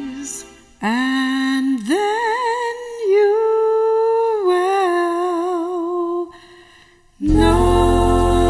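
A woman's solo voice humming a slow gospel melody. It slides up into long held notes with vibrato, then pauses briefly. About a second before the end, a fuller chord of several voices with a low backing comes in together.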